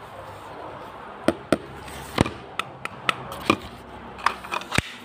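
Sharp plastic clicks and knocks from a Glock 18 airsoft pistol and its magazine being handled, about ten irregular clicks starting about a second in, over a steady hiss.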